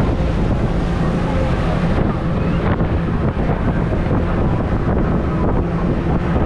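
Motorboat under way: a steady engine drone with wind buffeting the microphone and water rushing past the hull.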